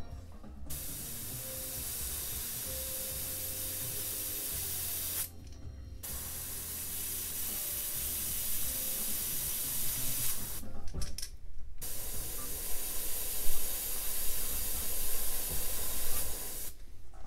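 Badger airbrush spraying paint: a steady hiss of air and paint in three long passes of about four to five seconds each, with short breaks between them.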